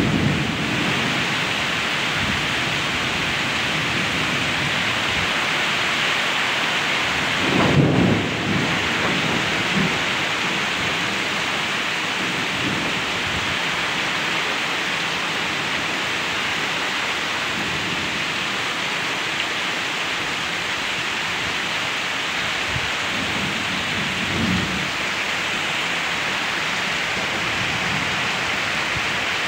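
Heavy tropical rain pouring steadily onto the ground and rocks and running off a roof edge. A brief low rumble swells about eight seconds in.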